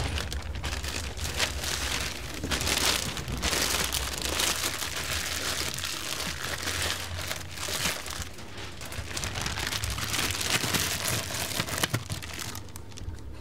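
Korean corn dogs sizzling in deep-fryer oil, with scattered crackles. The sizzle swells and eases several times.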